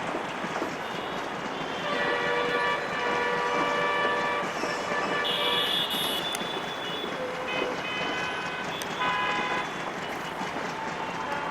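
Diesel locomotive horn sounding a long chord of several tones for about three seconds, then a higher-pitched blast and a few shorter blasts, over the steady rumbling noise of a train.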